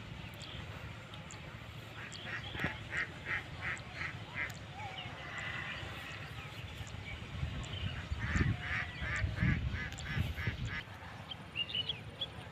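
Waterfowl calling, in two runs of evenly spaced honking calls at about three a second, with a low rumble under the second run. A few small bird chirps follow near the end.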